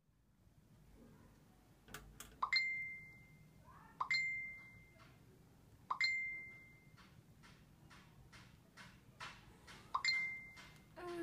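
Smartphone message notification chime dinging four times over about eight seconds, each a short clear high ping, with faint clicks in between.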